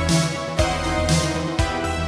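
Synthwave instrumental music: synthesizers over a steady Linn drum-machine beat at about 120 beats a minute.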